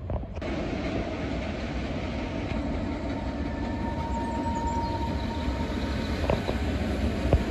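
Yellow SNCF rail maintenance vehicle with a crane running slowly along the track, a steady mechanical rail-vehicle noise. A faint thin whine comes in the middle, and two sharp clicks come near the end.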